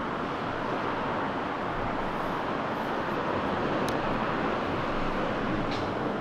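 Steady roar of road traffic passing on a nearby road, with two faint clicks about four and six seconds in.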